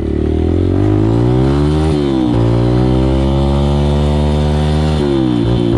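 Motocross bike engine accelerating away, its pitch rising through each gear and dropping at an upshift about two seconds in and again about five seconds in.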